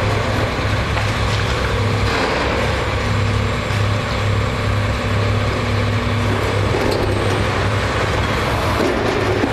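Diesel engine of a Cat 329E LN hydraulic excavator running steadily under load, a constant low drone, with a higher hydraulic whine holding for a few seconds in the middle.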